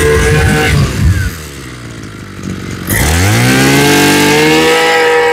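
BIGM Maruyama 23cc two-stroke brush cutter engine running at full throttle, then dropping to idle about a second in as the throttle is let off. About three seconds in it revs back up, rising steeply in pitch, and holds high speed again.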